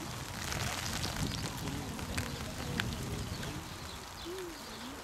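Steady patter of rain with scattered sharp drop ticks, and faint voices murmuring in the distance.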